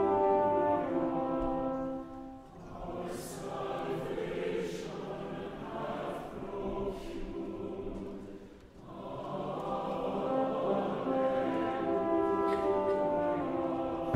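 Choir singing a hymn with instrumental accompaniment, sustained notes with short breaks between phrases about two and a half and nine seconds in.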